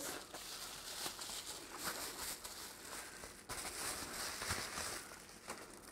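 Faint rustling and crinkling of bubble wrap as it is handled and unwrapped.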